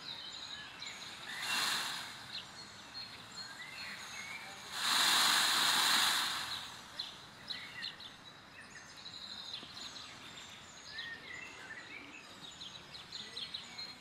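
Small birds chirping in short, scattered calls over outdoor background noise. A loud rush of noise lasts over a second about five seconds in, and a shorter, weaker one comes near the start.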